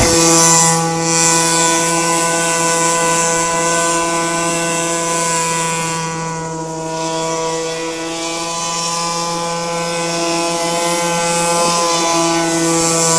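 Radio-controlled Dumas model airboat running at steady high speed, its small engine and air propeller making one steady high drone with many overtones. The drone fades a little in the middle as the boat moves farther off, and grows louder again near the end as it comes closer.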